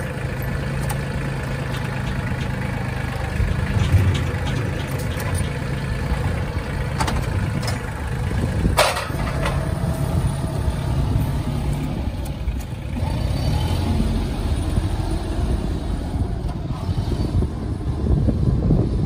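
Mahindra Max 26 compact tractor's diesel engine running steadily while its front loader works and the tractor backs away, the engine note shifting about twelve seconds in. A single sharp knock about nine seconds in.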